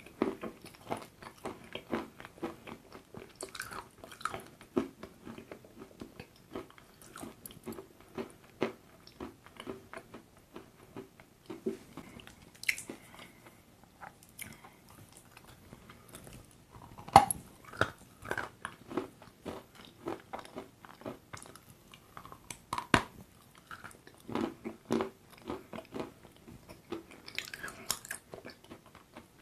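Close-miked biting and chewing of a chunk of white chalk dipped in chocolate paste: a steady run of small crunches, with a few sharper, louder bites about 17 and 23 seconds in.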